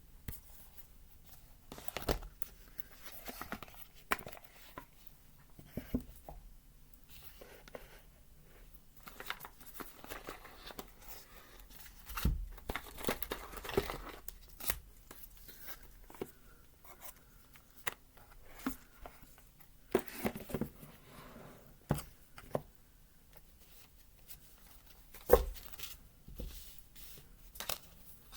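Hands handling a boxed tarot deck and its packaging: paper and card rustling and crinkling, with scattered taps and clicks, the loudest a sharp tap about 25 seconds in.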